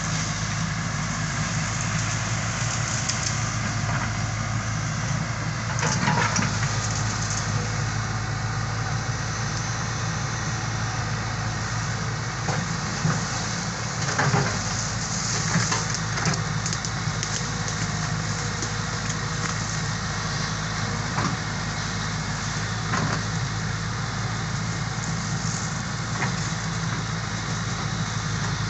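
Excavator's diesel engine running steadily under load while it clears weeds and undergrowth, with scattered crackling and snapping of vegetation and a few louder knocks.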